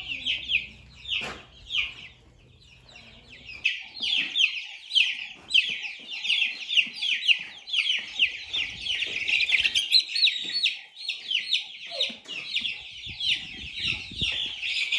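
A flock of chicken chicks peeping nonstop: many short, high chirps, each falling in pitch, overlapping densely. They are quieter for a couple of seconds about a second in, then thick again.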